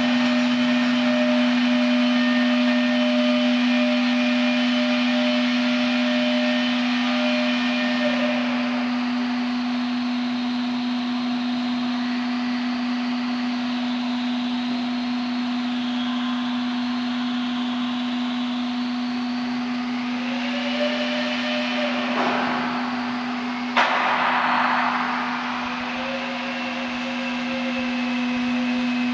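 A 200-litre vacuum homogenizer emulsifier mixer running with water, its motors giving a steady hum with a strong even tone over a hiss. A single sharp click comes about 24 seconds in.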